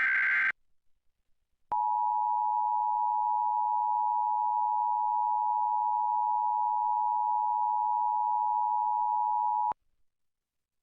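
The last burst of an Emergency Alert System SAME header data screech ends about half a second in. Then the EAS two-tone attention signal sounds, a steady two-note tone held for about eight seconds that cuts off abruptly, marking the start of a Required Monthly Test alert.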